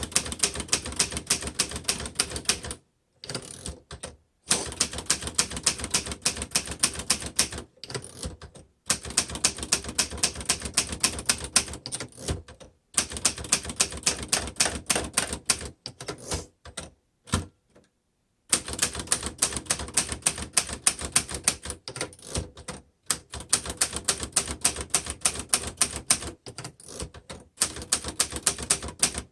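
A 1954 Underwood upright manual typewriter being typed on at a fast pace: rapid runs of type-bar strikes on the platen, broken by a few short pauses.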